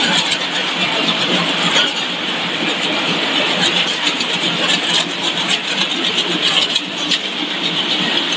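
Continuous frying line running: steady mechanical noise from its mesh-belt conveyors and geared drive motors, with faint clicks and rattles.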